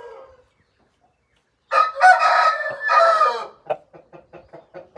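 An Aseel rooster crows once, a loud call lasting about two seconds that starts nearly two seconds in. It is followed by rapid clucking at about five clucks a second.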